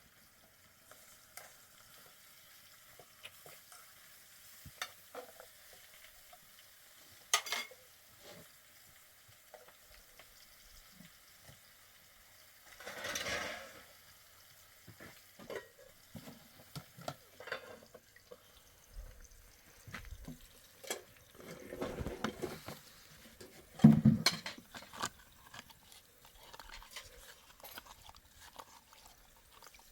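Cooking in a pan over an open fire: scattered clinks and scrapes of stirring over a faint sizzle, with one louder knock late on.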